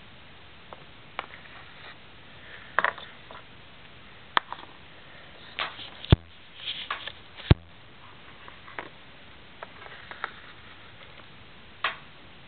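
Scattered light taps and clicks of handling, as small polymer clay figurines and the handheld camera are moved about on a table. Two sharper knocks come about a second and a half apart near the middle.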